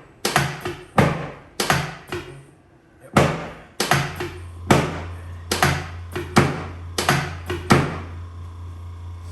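Chiropractic drop table's drop piece thudding down again and again under the adjuster's thrust: a rapid series of sharp thunks, about two a second, with a short pause around two and a half seconds in and the last near the end. A steady low hum comes in about four seconds in and keeps going after the thunks stop.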